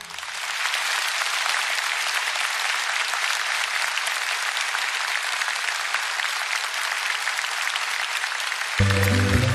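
Large audience applauding steadily. Just before the end, a band starts playing again, with strong low notes.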